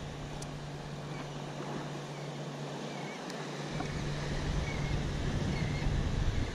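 Wind buffeting the camera microphone over small surf washing onto the beach, the wind rumble picking up and growing louder a little past halfway.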